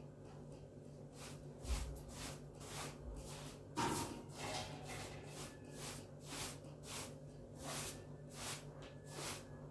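Short-handled straw hand broom sweeping a floor in quick, even strokes, a little more than two a second. A sharp knock about four seconds in is the loudest sound.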